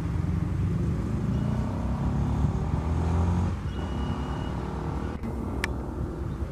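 Loaded log-wagon freight train rolling over the yard tracks, a low rumble of wheels on rail that eases after about three and a half seconds. A short thin high tone comes near the middle and a sharp click near the end.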